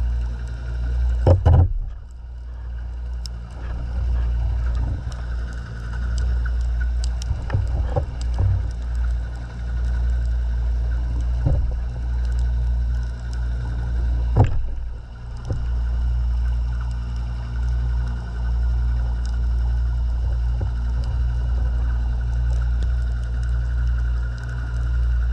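Muffled underwater rumble picked up through an action camera's waterproof housing, with a faint steady hum over it. A few sharp knocks break in, the loudest about a second in and again about halfway through.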